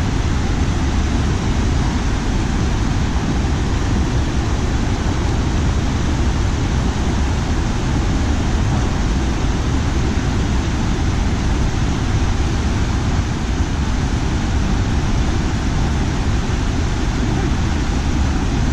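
A rocky mountain stream rushing over boulders and rapids: a steady, unbroken sound of white water.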